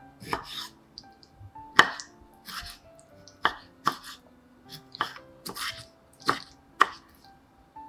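Soft background music with held notes, and about ten sharp short clicks or taps at irregular intervals over it, the loudest about two seconds in.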